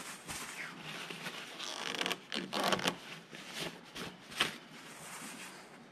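Cloth shop rag rustling and rubbing as it wipes around a freshly refitted fuel filter/water separator bowl, in uneven strokes, with a short sharp click about four and a half seconds in.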